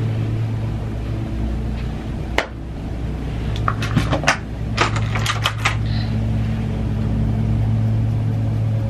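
Sharp little clicks and taps of plastic makeup items being handled: one a couple of seconds in, then a quick run of them in the middle. A steady low hum runs underneath.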